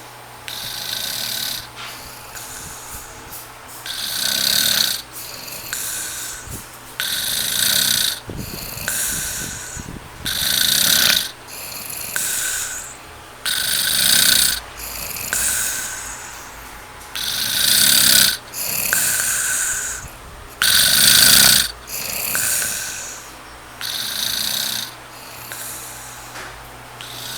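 A man snoring in his sleep, one snore with each breath, the breaths coming every two to three seconds. Loud snores alternate with softer ones.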